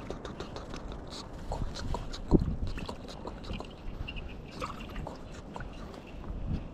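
Water splashing and dripping close by, with scattered small clicks and knocks and one sharp, louder thump about two and a half seconds in.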